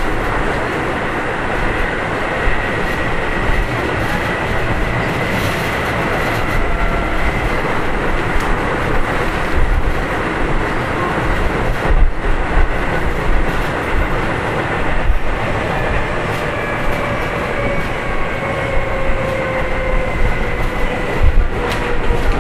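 Keio 7000 series field-chopper electric train heard from inside the car while running: steady wheel-on-rail rumble with a few rail-joint clicks at uneven intervals. Faint whining tones ride on top, one sliding slowly down in pitch over the second half.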